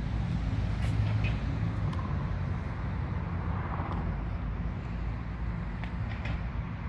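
Steady low outdoor rumble of background noise with no clear single source, and a few faint ticks.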